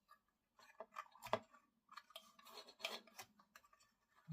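Small plastic model-kit parts being handled and pressed together: faint scattered clicks, taps and rubbing scrapes, the sharpest click about a second in and another cluster near three seconds.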